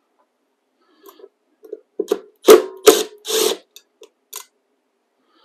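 A cordless Milwaukee Fuel impact driver runs in about four short bursts, about two to three and a half seconds in, driving the cutterhead retaining screws of a thickness planer.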